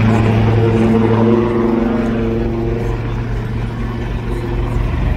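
Two Leonardo Wildcat HMA2 twin-turboshaft helicopters in a low display flypast: a loud, steady hum of turbines and rotors over a low rotor beat. It eases off slightly after about a second and a half.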